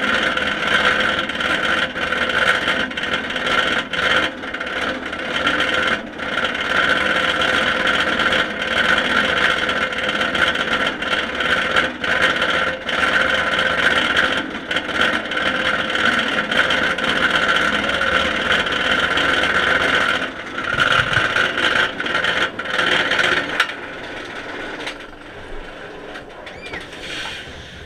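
Inverted roller coaster train being hauled up its chain lift hill: a loud, steady mechanical clatter from the lift. About four-fifths of the way through it drops away sharply and turns quieter as the train reaches the crest.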